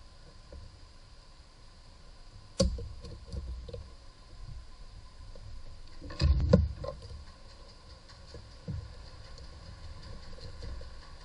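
Hand-handling noises of working on hoses and fittings in a car's engine bay: a sharp knock about two and a half seconds in, a louder clatter of knocks a little past halfway, and small clicks and rustles between.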